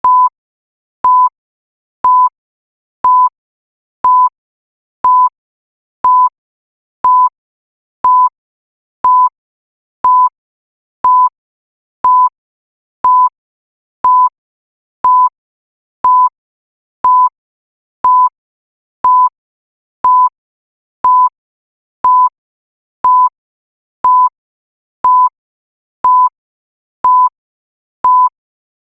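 Countdown timer beeping: one short, high, single-pitched beep every second, each the same, with silence in between.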